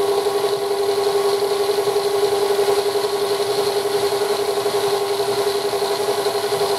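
Electric stand mixer running at a steady speed, whipping cream in its stainless steel bowl: a steady motor hum with one clear pitch.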